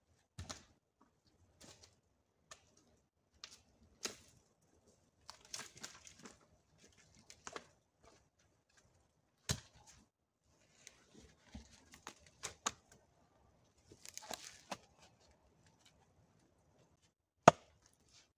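Irregular footsteps and rustling in dry leaf litter and twigs, with scattered clicks and knocks of wood being handled; the loudest is a single sharp wooden knock near the end.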